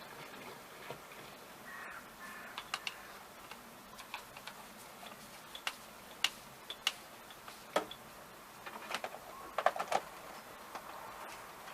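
Scattered light clicks and taps from small parts and tools being handled at a workbench, with a quick run of sharper clicks near the end, over a faint steady hiss.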